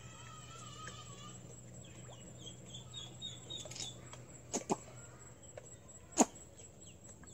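Duckling peeping: a run of short, high cheeps, several a second. A few sharp clicks follow past the middle, the loudest about six seconds in.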